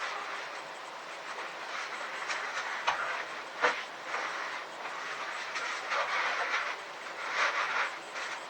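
Irregular scraping and rustling of material being handled and fitted by hand, coming in uneven surges, with a sharp knock about three and a half seconds in.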